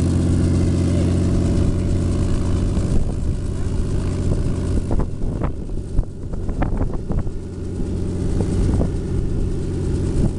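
A small two-bladed helicopter running on the ground, its engine and spinning main rotor making a loud, steady drone. Irregular short thumps come in over the second half.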